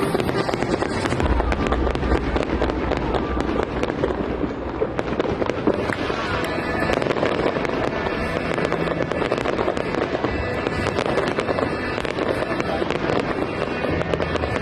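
Fireworks display: a dense, continuous crackling of many small rapid bursts, with no single big bang standing out.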